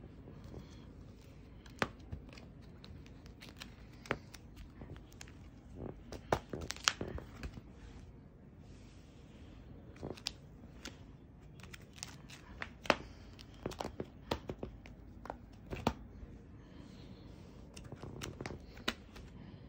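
Plastic card-sleeve pages of a trading card binder being turned and handled: irregular crinkling with scattered sharp clicks as pages flip and fingers run over the sleeves.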